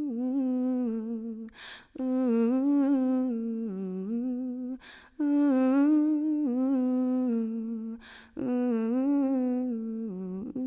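A woman humming a wordless melody with no accompaniment, in four phrases with a breath drawn between each, at about 2, 5 and 8 seconds in.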